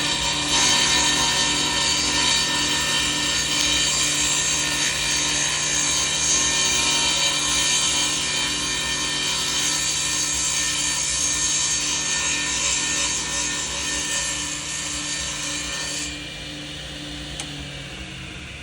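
Table saw running and cutting along the edge of a board pushed through on a sliding jointer jig: a steady motor hum under the hiss of the blade in the wood. About sixteen seconds in, the cutting noise drops away and the saw runs on unloaded, quieter.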